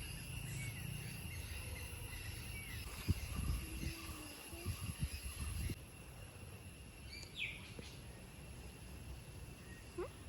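Outdoor ambience of insects droning steadily, with a few short bird chirps. Under it runs a low rumble with several soft knocks, which cuts off abruptly about six seconds in.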